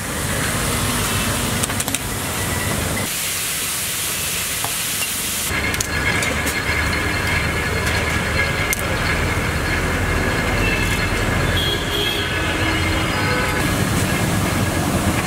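Hot oil hissing and sizzling in a large cooking pot as small batches of ingredients are tipped in, over a steady low rumble. For a couple of seconds a few seconds in, the rumble drops out and only the hiss is left.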